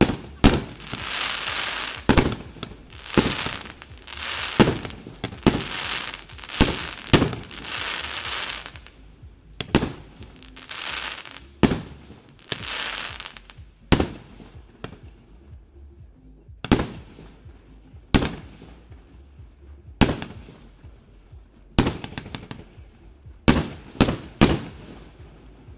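A 25-shot, 48 mm consumer firework battery (cake) firing its shots one after another: sharp bangs about every second, many followed by a second or so of hiss, with the last few bangs coming in a quicker run near the end.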